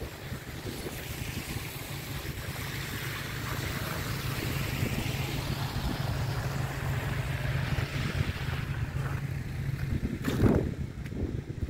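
Car tyres hissing on a wet, slushy street as a vehicle goes by, swelling and then fading, over steady wind buffeting on the microphone. A loud low thump on the microphone comes near the end.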